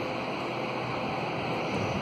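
Steady rushing noise with an uneven low flutter, like wind buffeting the microphone; no animal calls or distinct knocks.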